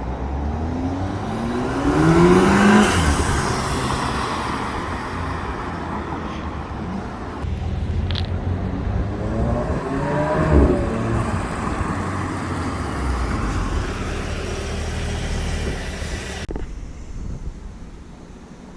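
2015 Audi S3 8V's turbocharged 2.0 TFSI four-cylinder accelerating twice, its pitch rising each time, with a rushing whoosh as the throttle lifts from the diverter valve venting to air through an ECS atmospheric spacer.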